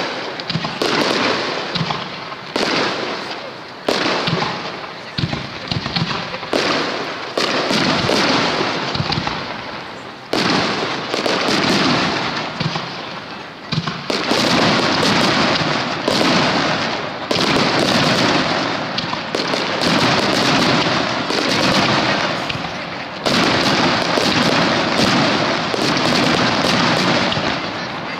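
Starmine fireworks barrage: aerial shells launching and bursting in quick succession, a dense run of booms and crackle that hardly lets up, with two brief lulls midway.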